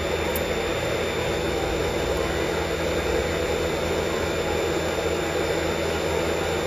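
Steady air-conditioning noise: a constant rushing hiss with a low hum and a faint high whine.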